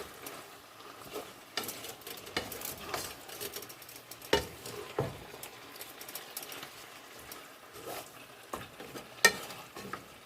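Squid simmering with a light sizzle in an oyster sauce mixture in a pan, while a utensil stirs it and knocks and scrapes against the pan in scattered clicks, the sharpest about four and nine seconds in.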